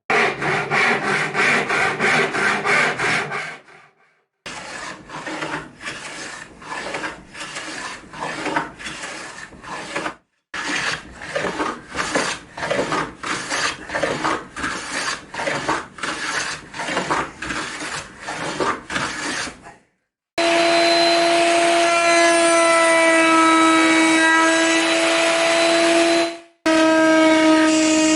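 Hand saw cutting oak in quick back-and-forth strokes, nearly two a second. About 20 seconds in this gives way to an electric router on a router table, running steadily with a high whine.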